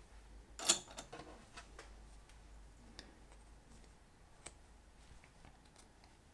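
Hands handling faux shearling and fleece fabric: a brief rustle under a second in, then a few small, faint clicks as plastic sewing clips are fastened on the layers.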